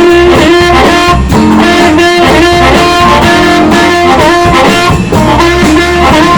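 Live electric blues band playing, with electric guitar to the fore over bass and drums.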